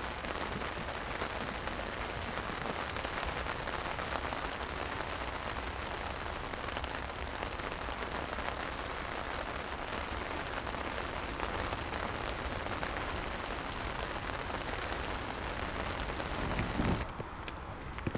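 Steady heavy rain falling, an even dense hiss, that drops away about a second before the end.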